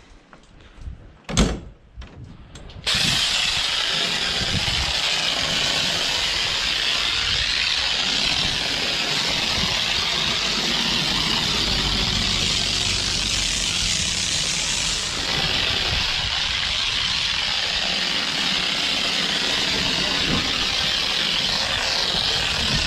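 A tractor's hood is shut with one sharp bang, and about three seconds in a pressure washer starts spraying the tractor: a steady, loud hiss of the water jet that runs on, its tone shifting a little as the spray moves.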